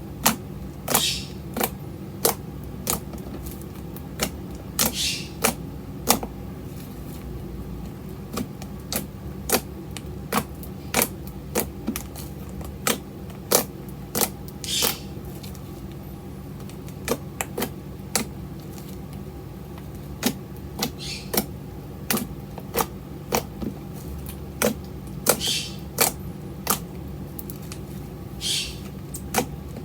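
Slime being pressed and poked, making sharp clicking pops at irregular intervals, a few a second, with several longer crackling squelches, over a steady low hum.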